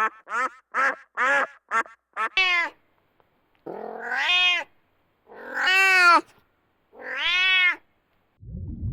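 A quick run of duck quacks, then a cat meowing three times in long, drawn-out meows.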